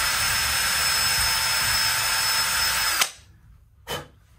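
DeWalt cordless drill spinning a small bit, drilling a pilot hole for a strap-button screw in the wooden guitar body: a steady whine for about three seconds that then cuts off, followed by a brief knock near the end.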